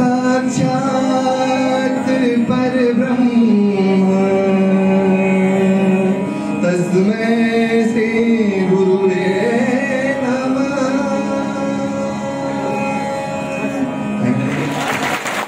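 A man sings a slow song into a microphone over a PA system, holding long notes that slide from one pitch to the next over a steady drone. Applause breaks out near the end.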